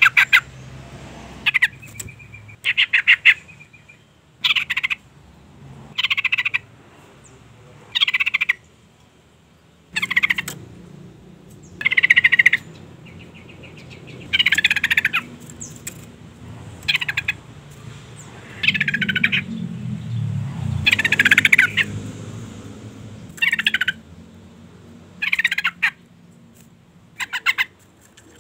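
Yellow-vented bulbul (trucukan) calling: short, rapid chattering phrases repeated every one to two seconds. This is a female's call, the kind used to lure and excite males into singing.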